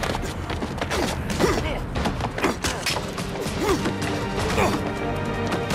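Fistfight: punches and blows landing again and again, with dramatic background music.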